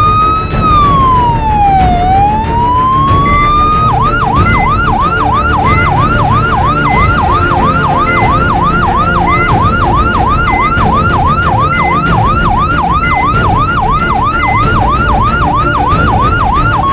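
Emergency vehicle siren. It makes one slow rising-and-falling wail, then about four seconds in switches to a fast yelp of roughly three quick sweeps a second, over a steady low background rumble.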